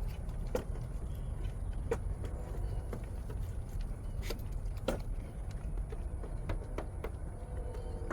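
Goats eating: irregular crunching clicks of chewing feed, over a steady low rumble.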